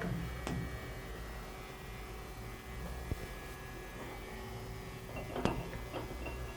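Steady mains hum from the powered-up lathe, with a few scattered clicks and knocks as its tailstock is handled; the sharpest knock comes about five and a half seconds in.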